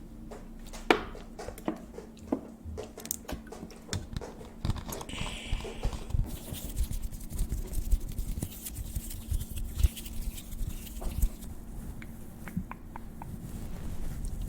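Close-miked ASMR triggers: irregular soft clicks, pops and crackles, with a short rustling hiss about five seconds in, over a faint steady low hum.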